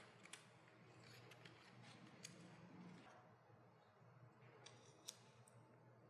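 Near silence with a few faint, sharp clicks and light paper rustling as paper butterfly cut-outs are handled and pressed onto a staircase wall, about six small ticks spread over the few seconds.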